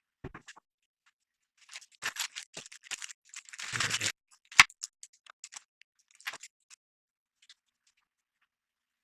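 Hands handling computer parts: scattered small clicks and scrapes, a longer rustle about four seconds in, then one sharp click, the loudest sound.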